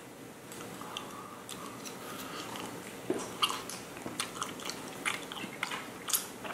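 A person chewing a mouthful of soft cooked macaroni, with many small wet clicks and smacks of the mouth.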